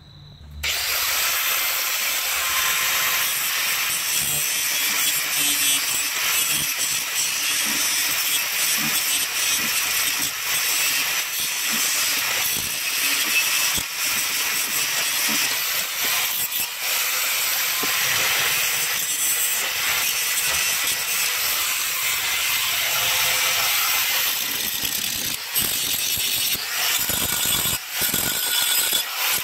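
Handheld angle grinder grinding steel: a steady, loud grinding hiss of the disc on the metal, starting about half a second in and briefly dipping twice near the end. The ends of a mower's bracket are being ground down flush and to bare metal ahead of welding.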